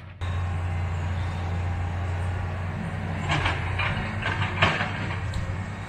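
Tracked excavator working: its diesel engine running with a steady low drone, and a run of clanks and rattles from about three to five seconds in.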